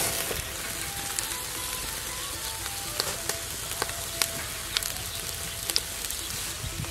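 Oil-brushed bullfrogs sizzling on a wire grill over a charcoal fire, a steady hiss broken by scattered sharp crackles and pops.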